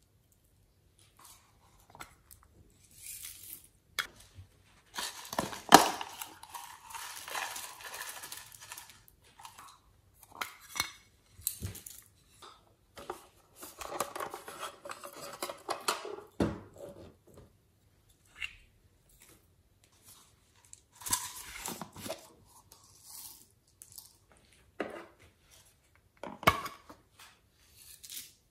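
Small plastic toy containers being handled, tapped and clicked, their glitter and bead contents shaken out into a glass dish. Scattered clicks and taps, with several stretches of rattling and pouring.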